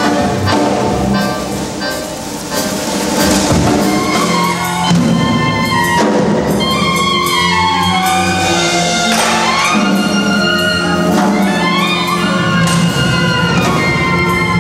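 Instrumental stage music with brass and drums, with long falling runs of notes in the middle and again near the end.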